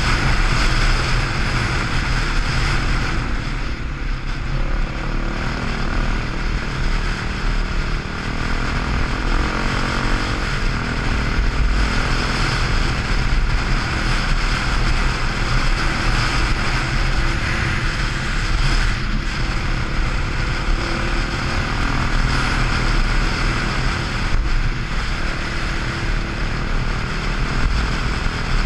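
Kawasaki dirt bike engine running steadily as the bike rides along at speed, with wind rushing over the helmet-mounted camera.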